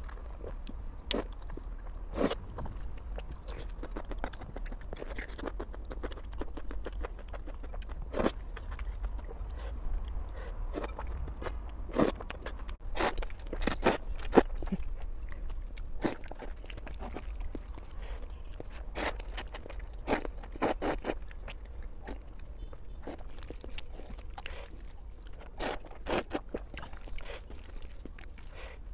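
Close-miked eating sounds of a person slurping and chewing thick noodles: a string of sharp wet mouth clicks, smacks and short slurps, over a low steady hum.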